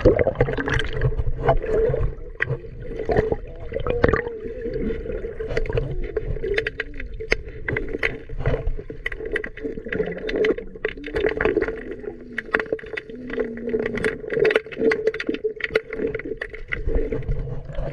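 Muffled underwater sound through a camera's waterproof housing as a diver swims past: bubbling and gurgling water with many scattered sharp clicks and knocks over a steady hum.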